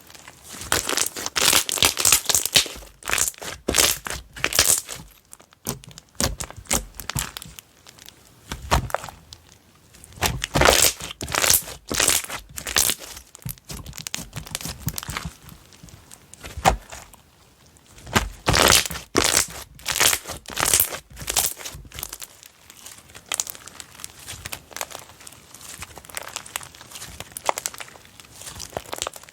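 Slime being squeezed, pressed and stretched by hand, giving clusters of crackling, popping clicks with quieter pauses between; the handling lightens in the last few seconds.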